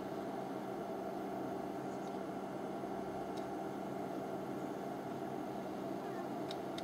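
A steady low hum with a few faint clicks: one about halfway through and two close together near the end.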